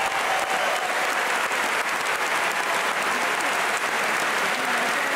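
Audience applauding: dense, even clapping at a steady level, with a few faint voices in the crowd.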